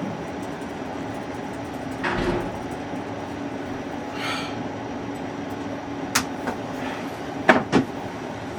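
A steady low mechanical hum, with a brief swelling whoosh about two seconds in and a few sharp clicks and knocks near the end.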